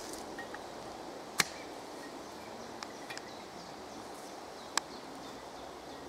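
Two sharp clicks, one about a second and a half in and another near five seconds, with a few faint ticks between them, over a faint steady outdoor background.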